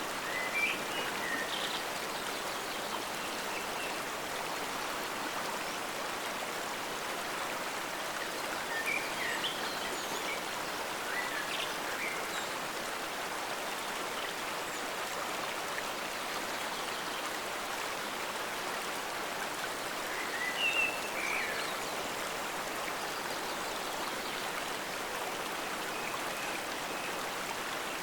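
Forest stream: water flowing steadily. A few short bird chirps come through it about a second in, again around the middle, and once more about three quarters of the way through.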